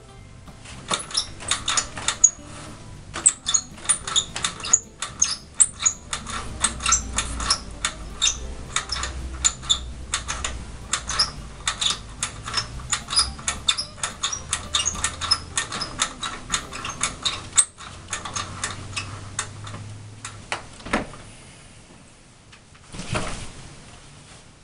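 Horizontal window blind slats rattling and clicking rapidly as they are pulled and straightened by hand. The clatter dies down about 21 seconds in, with one more short rattle near the end.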